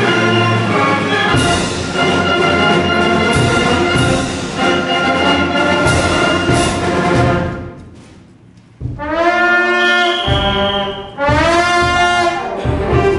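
A student concert band of brass and woodwinds playing a loud full passage that dies away about halfway through. After a brief hush, two loud brass chords come in a couple of seconds apart, each bending upward in pitch as it starts.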